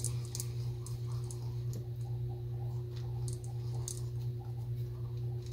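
Light, irregular clicks of a Zebco One Classic spincast reel's small metal and plastic parts being handled and fitted by hand, over a steady low hum.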